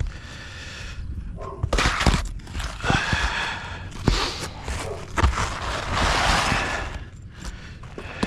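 Rough scraping and rustling with several sharp knocks from work on an asphalt shingle roof.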